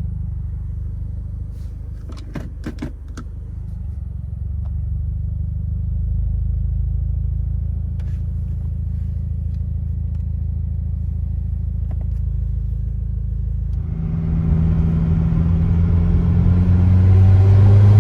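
Subaru WRX's turbocharged flat-four, fitted with an aftermarket intake and bypass valve, running with a steady low rumble, a few sharp clicks about two to three seconds in; from about fourteen seconds in the engine note grows louder and rises as the car accelerates.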